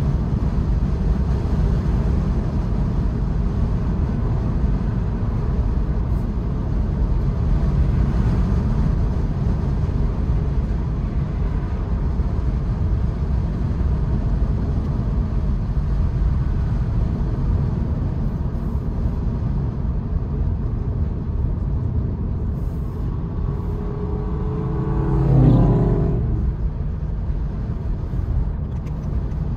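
Steady tyre and wind rumble inside a 2022 Honda Insight driving with the sunroof open. About 25 seconds in, a passing vehicle swells briefly and fades.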